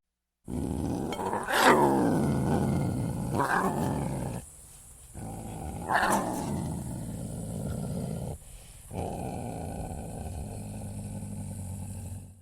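Leopard roaring and growling in a string of calls, the loudest about a second and a half in and another around six seconds, with two short breaks, over a steady high hiss.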